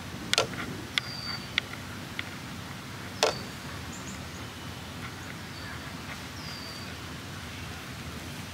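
A few sharp taps and clicks of a watercolour brush working against a paint palette, the loudest about three seconds in. Faint short high bird chirps sound in between over a steady outdoor hush.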